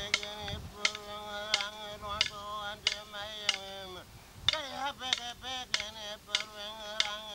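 A man singing a Tiwi Kulama ceremony song in a wavering, sustained voice while beating clapsticks together in a steady rhythm of about one and a half strikes a second, with a brief break in the singing about four seconds in.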